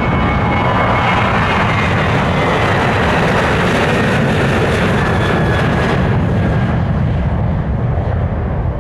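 Boeing 737-800's CFM56 jet engines at takeoff power: a loud, steady roar with a faint whine that slides slowly lower as the airliner passes, easing off near the end.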